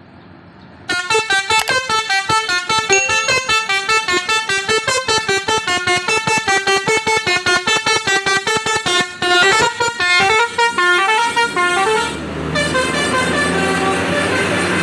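Basuri V3 telolet horn on a bus, with top-mounted trumpets, playing a fast melody of many short toots starting about a second in. It moves into a few longer notes and then a steadier blended blare near the end.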